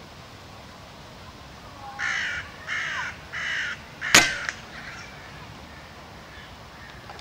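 A crow cawing three times in quick succession, then a single sharp crack a moment later, the loudest sound: a shot from a Logun Gemini .177 air rifle.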